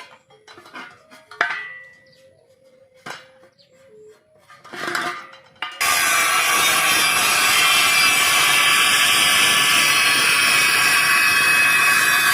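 Metal parts clanking and being tapped, with one sharp ringing clang, then about six seconds in a loud, steady rushing noise starts suddenly as a cutting tool begins cutting the steel.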